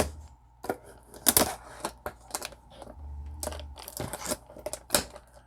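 Trading-card box and its packaging being handled and opened by hand: a run of irregular clicks, snaps and crinkles, a few of them sharp.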